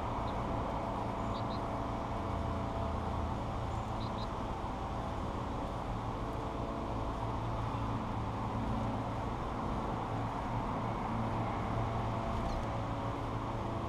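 Steady low rumble and hum, like distant traffic, with a few faint, brief high chirps from finches at a seed feeder, about a second in, around four seconds in and near the end.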